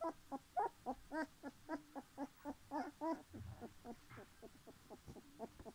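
Young puppies squeaking and whimpering in a quick run of short high calls, about five a second, growing softer after the first three seconds.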